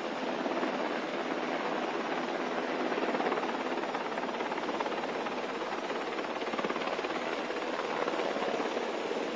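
Helicopter descending and coming in to land, its rotor running with a steady noise.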